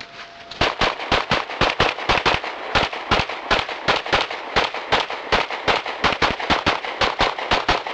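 Pistol shots fired in quick, nearly continuous strings, about four to five a second, several dozen in all, starting about half a second in.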